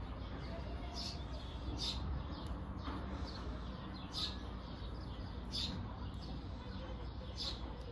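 Short, high bird chirps every second or two over a steady low background hum.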